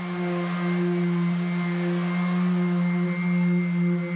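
Random orbital sander running steadily on a poplar tabletop: a constant hum with a hiss of the sandpaper on the wood.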